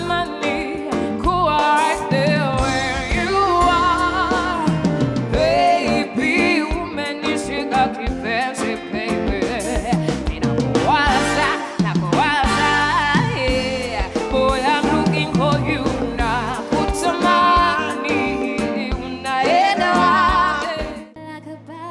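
Live band music with a wavering melodic lead over bass and drums. About a second before the end the full band drops away, leaving a quieter held chord.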